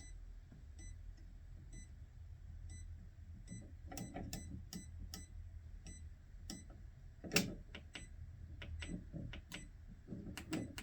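Faint low hum with soft, evenly spaced ticks about twice a second, then a run of sharp clicks and taps, the loudest about seven seconds in.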